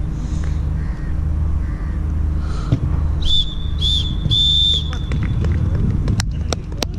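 Referee's whistle blown three times, two short blasts and then a longer one, signalling full time. A steady low rumble runs underneath, with a few sharp clicks near the end.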